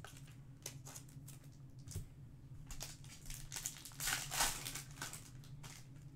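A Topps Chrome Match Attax card pack's wrapper being torn open and crinkled by hand, in a run of sharp crackles that are loudest about four seconds in. A faint steady low hum runs underneath.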